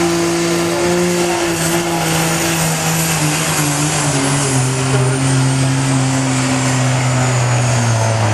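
Second-generation Dodge Ram's Cummins turbo-diesel running at full throttle while dragging a pulling sled, its note sinking steadily as the sled's load builds and drags the engine down. A high whistle falls along with it.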